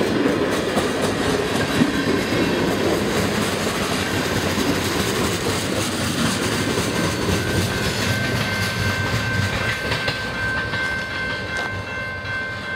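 Canadian National freight train's cars rolling past at a grade crossing, wheels clattering over the rails as the last lumber-loaded cars go by. From about halfway through, a thin steady high tone sounds over the rumble.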